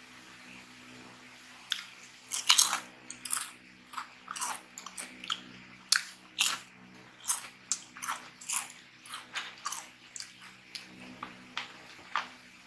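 Jack 'n Jill V-Cut ridged potato chips being bitten and chewed: sharp, irregular crunches, about two a second, starting about two seconds in.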